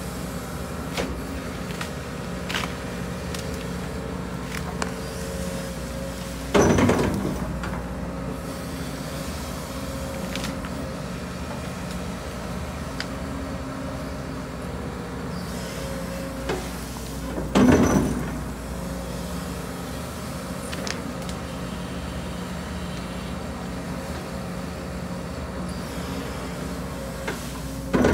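Case CX210D excavator's diesel engine and hydraulics running steadily. Three loud crashes of dirt and the bucket come about every eleven seconds, with small clanks in between.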